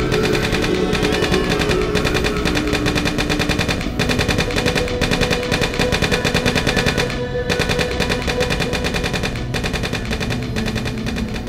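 Rapid bursts of machine-gun fire over music with steady held tones. The firing breaks off briefly about four, seven and nine and a half seconds in.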